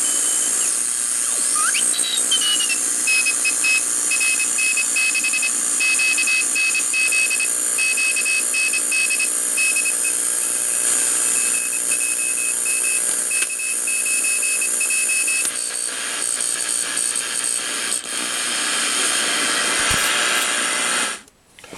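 RCA AR-77 shortwave receiver playing band static and hiss, with heterodyne whistles gliding in pitch early on. A high beeping tone keys on and off in uneven short and long beeps for about twelve seconds. The hiss cuts out suddenly near the end.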